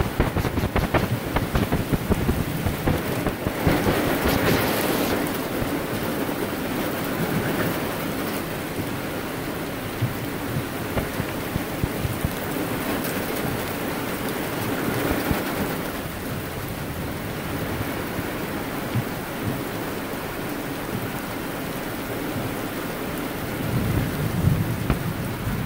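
Heavy rain falling, a steady hiss with sharp drop hits in the first few seconds, heard from inside a car with the side window open. The rain swells about four seconds in, and a low rumble comes near the end.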